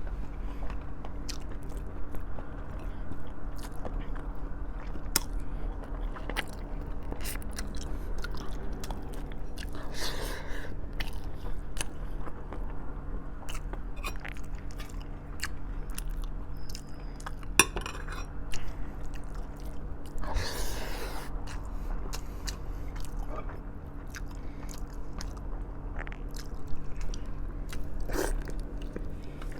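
A person biting and chewing braised pork trotters (humba) close to the microphone: wet mouth clicks and smacks throughout, with occasional crunches. A steady low hum runs underneath.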